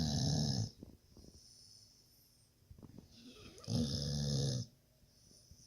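Snoring: two loud, rasping snores, one at the very start and another a little under four seconds in, each lasting under a second, with quiet breathing in between.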